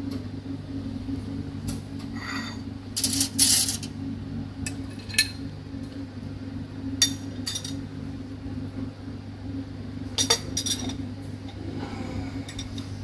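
Porcelain cup, saucer and teaspoon clinking, with a glass biscuit jar being handled, in scattered light knocks and a short scrape; a steady low hum runs underneath.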